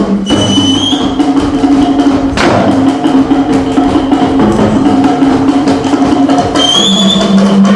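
Music with busy wood-block and drum percussion under sustained pitched notes; a short rising high note cuts through twice, about half a second in and near the end.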